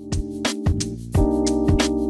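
Background music: held keyboard chords over a steady beat of sharp percussive strokes, with a chord change about a second in.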